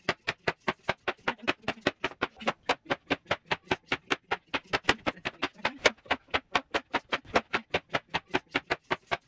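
A hand slapping a sheet of paper artwork over and over in a fast, even rhythm of about five sharp slaps a second.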